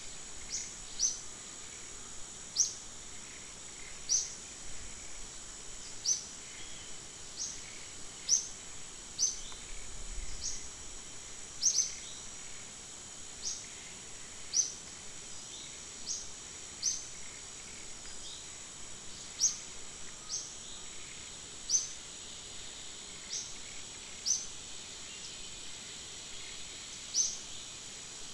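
Wet forest ambience: short, sharp, high chirps that fall in pitch, repeated irregularly about every one to two seconds, over a steady high-pitched drone and an even hiss of rain.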